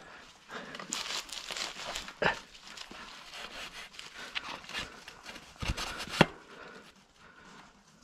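Mountain bike rolling over a rough, rocky dirt trail: tyres crunching on loose stones and the bike rattling, with sharp knocks about two seconds in and twice around six seconds in as it hits rocks.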